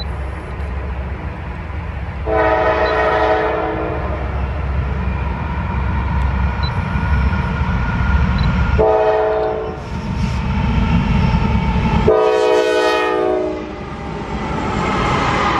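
Diesel locomotive air horn sounding three chord blasts, long, short, then long, over the steady low rumble of the train.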